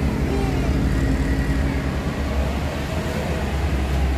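Steady low rumble of a vehicle engine and road traffic.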